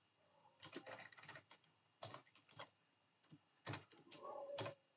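Faint computer keyboard keystrokes, a few scattered clicks and short runs of typing.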